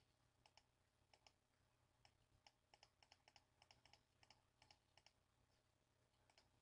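Near silence with a run of faint, irregular clicks from a computer mouse button, about three a second, as a scroll arrow is clicked repeatedly.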